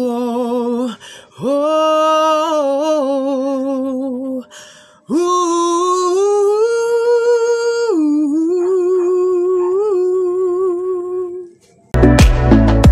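A man singing unaccompanied, holding long wordless 'ooh' notes with vibrato in three phrases as the song's closing ad-lib. About twelve seconds in, loud music with a beat cuts in.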